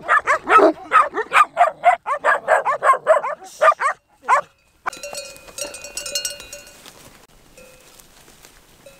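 Shepherd dog barking rapidly, about four barks a second, for the first four seconds. After a brief silence, livestock bells ring lightly.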